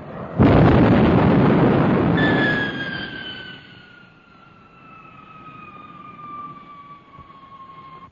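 A loud explosion bursts out about half a second in and dies away over the next few seconds, in the dubbed soundtrack of a Gloster Meteor downing a V-1 flying bomb. As it fades, a high jet whine sets in and falls slowly and steadily in pitch.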